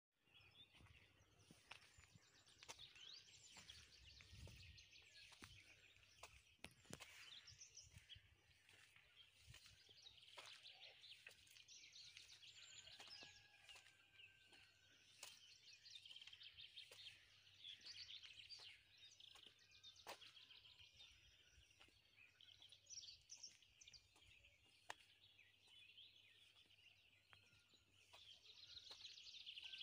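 Faint chorus of many songbirds singing, a dense run of overlapping chirps and trills with a few short whistled notes, growing a little louder near the end.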